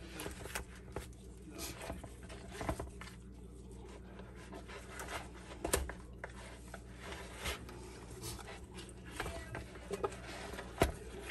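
Gloved hands rubbing seasoning into whole raw fish in a plastic bowl: irregular wet squelching and rustling, with knocks against the bowl, a sharper one about six seconds in and another near the end.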